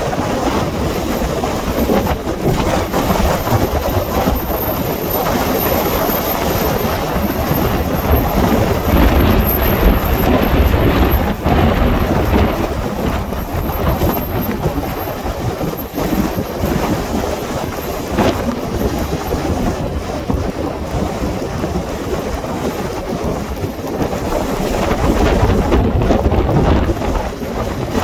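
Strong wind buffeting the microphone: a loud, continuous rumbling rush with heavier gusts about a third of the way in and again near the end.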